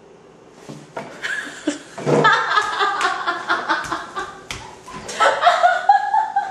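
Several people laughing, starting about a second in, with a few sharp knocks and handling bumps among the laughter.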